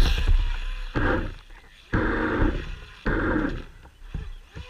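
Electric motor of an RC speedboat given four short bursts of throttle, each starting sharply and dying away, heard from a camera on the boat's own deck.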